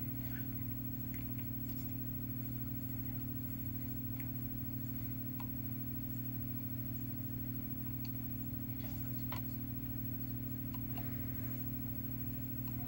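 Steady low electrical hum from a television playing back an old videotape, with a few faint soft ticks scattered through it.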